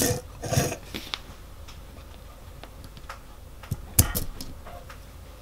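Vintage motorcycle clutch cog turning briefly on its ball race on the clutch plate, a short light rattle near the start, then a few sharp metallic clicks about four seconds in as the steel parts are handled.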